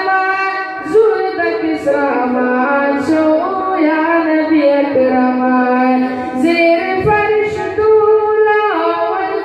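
A high-pitched young male voice singing a devotional recitation solo into a microphone, unaccompanied, in long held notes that glide from pitch to pitch.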